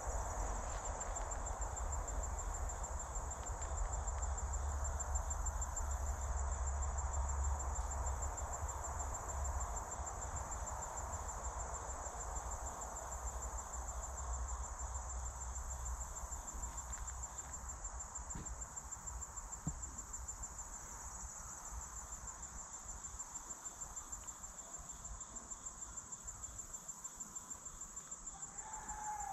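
Steady chorus of insects, a high, fast-pulsing trill that carries on without a break. A low rumble sits under it during roughly the first half.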